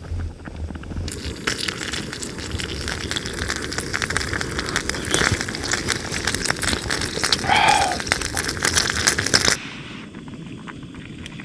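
Meat braising in a pan with garlic and carrot, sizzling and crackling in a dense run of pops; it cuts off suddenly about two seconds before the end, leaving quieter sounds.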